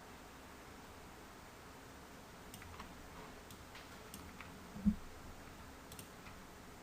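Faint, scattered clicks of a computer mouse, a few seconds apart, as pen-tool path points are placed on screen, with one louder soft thump about five seconds in.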